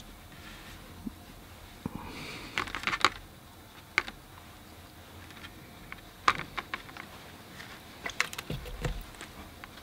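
Quiet, scattered light ticks and taps of a watercolour mop brush dabbing paint in a plastic palette and onto wet paper, a few at a time, a second or more apart.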